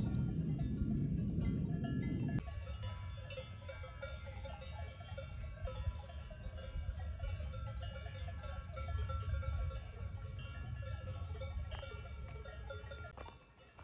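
Several cowbells clanking irregularly, their rings overlapping. A low rumble underlies the first two seconds and cuts off abruptly.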